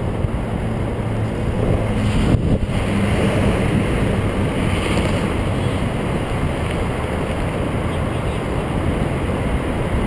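Steady wind noise buffeting the microphone of a camera on a moving bicycle, a loud rumble without a break.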